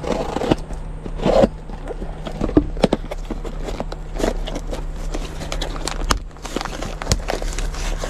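A plastic mailing bag being handled and opened: irregular crackling, scraping and clicks over a steady low hum.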